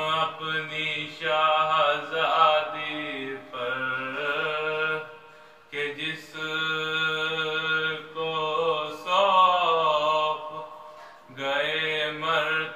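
A man's solo voice reciting a Muharram salam in Urdu, a mourning elegy, as a slow chant of long, drawn-out, wavering notes. He breaks off briefly about five seconds in and again near the end.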